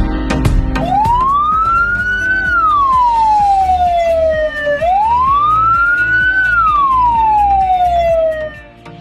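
Ambulance siren wailing in two slow rise-and-fall sweeps of about four seconds each, over background music with a beat.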